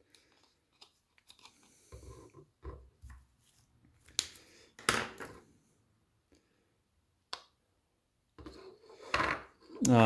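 Hands handling 3D-printed PETG dust hose couplers that are held together by small disc magnets. There are faint knocks and scrapes, and a few sharp plastic clicks about four and five seconds in as the two halves are pulled apart.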